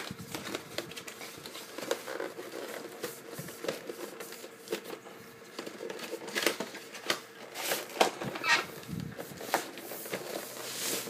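Cardboard packaging being opened and handled, with an inner box sliding out: scattered knocks, scuffs and rustles, and a few short squeaks of cardboard rubbing on cardboard a little after the middle.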